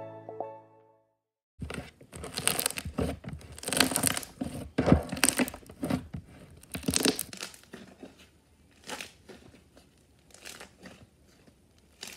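Background music fades out. Then homemade glue slime is squeezed and pressed by hand close to the microphone: an irregular run of crackles, squelches and small bubble pops, busy at first and thinning out in the last few seconds.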